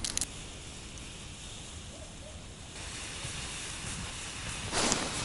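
Wind on the microphone, a steady rush of noise, with a short scratchy rustle right at the start and a louder rush of noise near the end.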